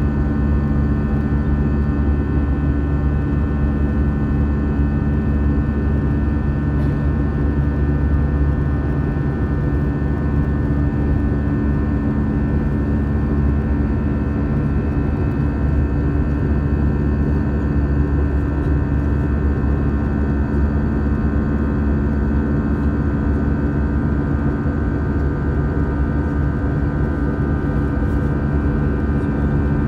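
Airbus A320 jet engines (CFM56) at climb power, heard inside the cabin from a seat by the wing: a steady drone with a steady whine of several high tones over it.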